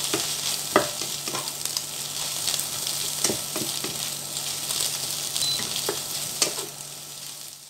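Shredded cabbage sizzling in a frying pan while a spatula stirs it, with an irregular scrape or knock of the spatula against the pan about once a second. The sizzle eases off near the end.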